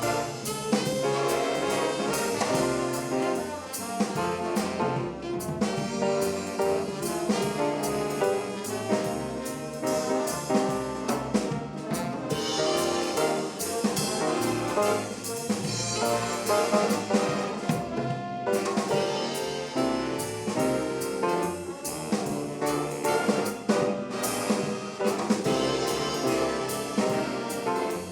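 High school jazz band playing a swing number, with the trumpets, trombones and saxophones carrying the tune.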